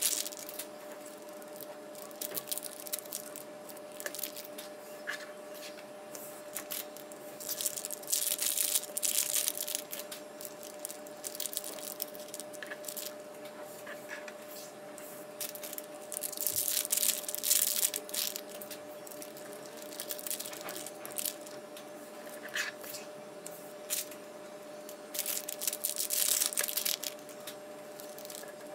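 Plastic packaging bags crinkling and being torn open in bursts a few seconds apart, with a few light knocks of small parts set down between them and a steady faint hum underneath.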